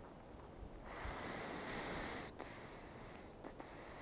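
Hazel grouse decoy whistle blown to lure grouse, imitating the bird's call. It gives a long thin, high-pitched whistle starting about a second in, then shorter whistles that drop in pitch at the end, with a breathy hiss beneath.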